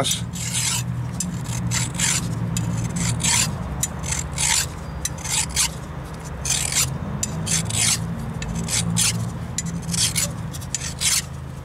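A flat metal file rasping across a rusty rear brake caliper piston in strokes about twice a second. The piston is turned between strokes to clean the rust off without flat-spotting it.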